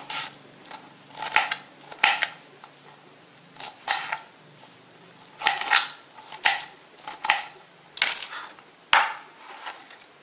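Small kitchen knife chopping bitter gourd into pieces on a cutting board. About a dozen separate sharp chops come at an uneven pace, some in quick pairs.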